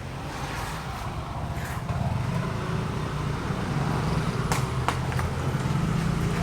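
An engine running with a steady low hum that grows louder about two seconds in, with a few sharp clicks or knocks near the middle.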